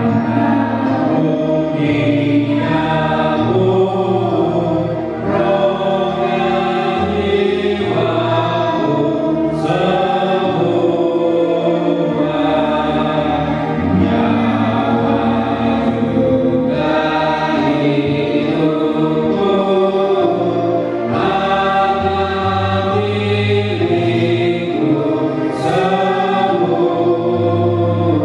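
A group of voices singing a slow Indonesian hymn of dedication together, in sustained phrases.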